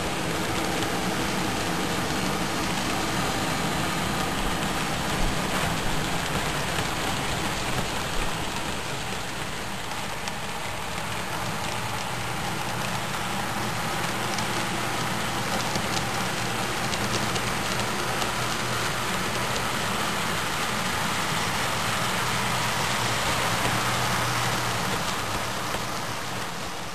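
HO-scale model train's covered hopper cars rolling past on the track: a steady rushing clatter of small wheels on rail with a faint low hum, fading near the end.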